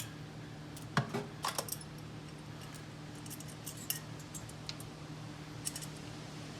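Light metallic clinks and clicks of a steel bolt and hand tools being handled, a quick cluster about a second in and scattered ones later, over a steady low hum.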